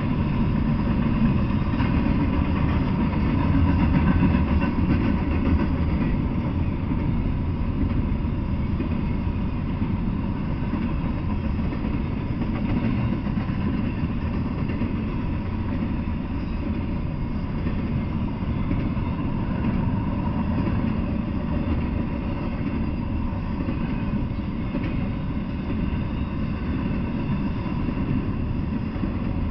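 Double-stack intermodal freight train rolling past, its steel wheels running over the rails in a steady, continuous rumble.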